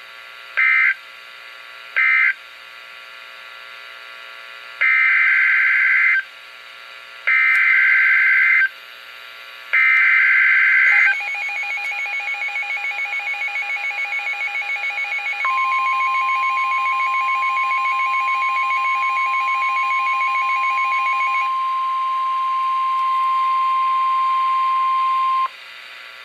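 Emergency Alert System tones: two short buzzing end-of-message data bursts, then three longer SAME header data bursts about two and a half seconds apart. A rapidly pulsing alert tone follows, joined about halfway through by a steady single-pitch warning tone of the NOAA Weather Radio kind, which carries on alone after the pulsing stops and cuts off abruptly near the end.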